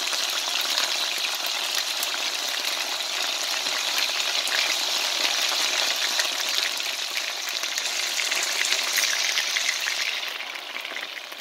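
Chicken breast pieces sizzling and crackling in hot oil in a wok while being turned with tongs. The sizzle is steady, then gets quieter about ten seconds in.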